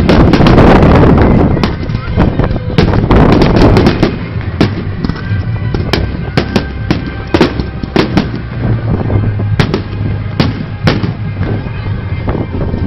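Aerial fireworks exploding: a dense volley of bangs and crackle for the first few seconds, then scattered single sharp bangs.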